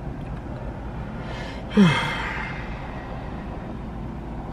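A man's loud, exasperated sigh about two seconds in: a breathy exhale with a voiced tone that drops in pitch, then fades.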